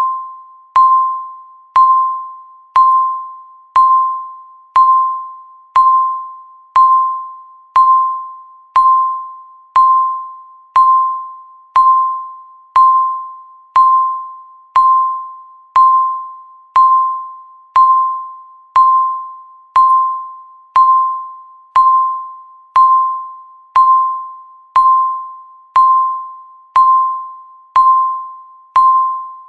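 Countdown timer beep sounding once every second, a single clear tone that starts sharply and fades away before the next.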